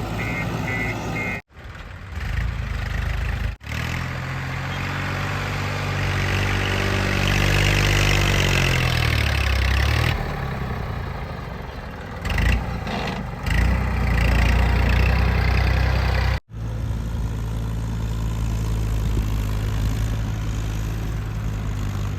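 Diesel engine of a JCB 3DX backhoe loader working, its pitch sinking and rising again a few seconds in as it takes hydraulic load and revs back up. The sound cuts off suddenly three times for a split second.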